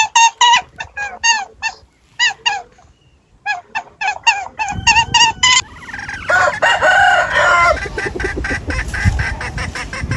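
Chickens clucking in quick runs of short calls, then, about six seconds in, many birds calling at once with a long crow-like call over a rumbling background.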